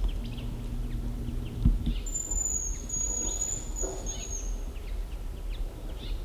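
A high, thin hazel grouse whistle, held for about two and a half seconds and dipping slightly at the end.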